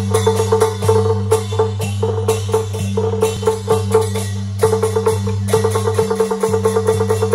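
Beiguan percussion ensemble playing: rapid drum strokes and wood-block clacks with hand cymbals, over a steady low hum. The strokes come thicker and faster from a little past the middle.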